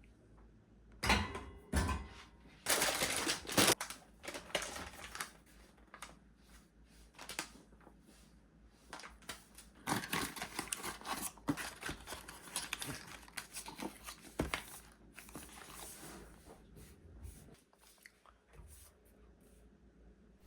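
Intermittent handling noise: rustling and crinkling of packaging with light clicks and knocks as items are moved and sorted. It comes in two spells, the busiest about a second to four seconds in and again around the middle, with quiet gaps between.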